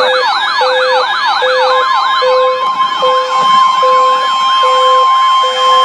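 Electronic weather alert siren tones: a fast warbling siren of repeated downward pitch sweeps layered over a low beep pulsing a little over once a second. About two seconds in, a steady high alarm tone joins, like NOAA Weather Radio's warning alarm tone that heralds a new warning.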